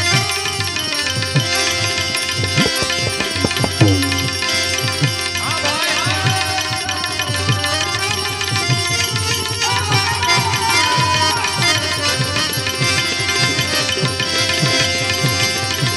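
Instrumental interlude of a Gujarati devotional bhajan: hand drums keep a steady rhythm under a melodic instrument, which plays a sliding phrase about five seconds in and holds a long note around ten seconds in.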